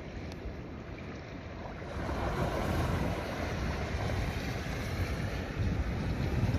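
Rushing noise of wind buffeting the microphone together with the wash of the sea on the shore, growing louder about two seconds in.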